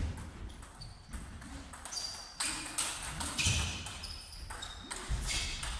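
Table tennis rally: a celluloid ball cracking off rackets and bouncing on the table in quick irregular strokes, with short high squeaks of players' shoes on the court floor.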